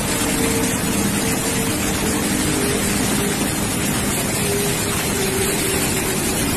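Steady roar of a fast, muddy flood river in full spate, a dense unbroken rush of water.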